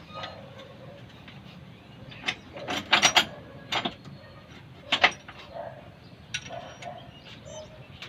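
A run of sharp knocks and clicks, clustered about two to four seconds in, with the loudest single knock about five seconds in, from hand work with tools on a bare Mitsubishi 4M40 engine block. A pigeon coos softly near the end.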